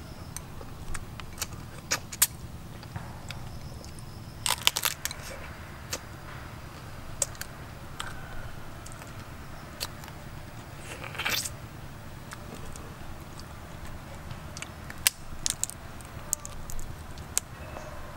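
Eating sounds: cooked king crab meat bitten off the leg and chewed, with scattered sharp clicks and short crackles from lips and shell, over a steady low background hum.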